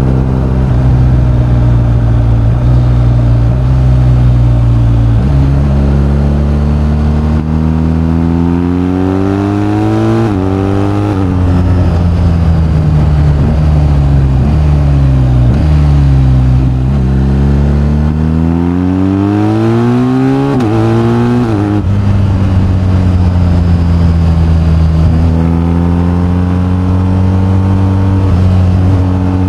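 BMW R1250GS boxer-twin engine under way: its pitch climbs under acceleration, drops sharply as it shifts up about a third of the way in, sinks as the bike slows, then climbs again to two quick shift drops. In the last third it runs at a steady pitch.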